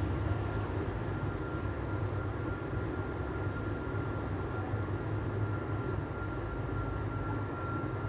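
Panasonic F-EY1511 ceiling fan running at a steady speed: a low motor hum under a rush of moving air, with a thin steady high tone above it.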